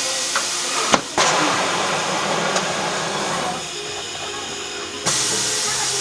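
Compressed air hissing hard from an air hose, cutting off briefly about a second in, easing off for a moment past the middle, then blowing full again.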